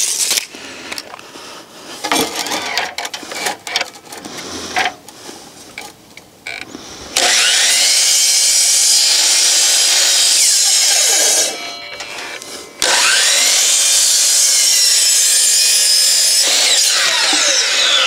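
Tape measure and board handling, then a 12-inch compound miter saw cutting a board at 45 degrees. The saw runs loud for about four seconds, dips and stops, runs again for about four more seconds, and then spins down with a falling whine.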